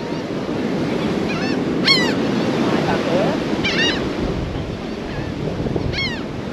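Surf breaking steadily with wind on the microphone, and gulls calling three times, short harsh cries about two seconds apart.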